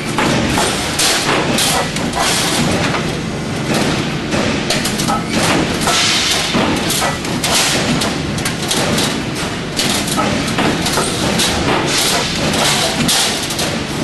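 Cable tray rollforming machine running with a perforated steel strip feeding through its forming rollers: a continuous dense clatter of irregular metallic knocks.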